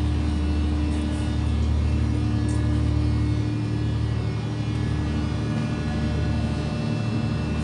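Heavy engine machinery running with a steady low drone and a constant hum.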